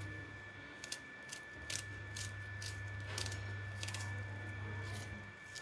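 Small knife cutting through an onion held in the hand, pieces dropping into a steel bowl of gram flour: a series of short, crisp cuts at irregular spacing, roughly two a second, over a faint steady hum.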